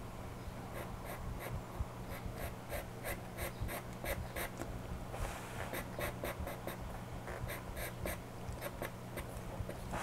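Pastel pencil scratching on paper in quick, short strokes, coming in runs of a few a second, with one longer stroke about five seconds in.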